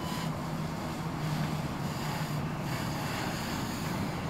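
Fire hose spraying water onto a burning car: a steady rushing hiss, over a low, steady engine hum.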